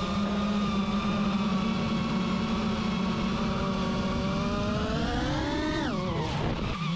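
Motor running with a steady low hum; about two-thirds of the way in its pitch climbs, then falls sharply near the end.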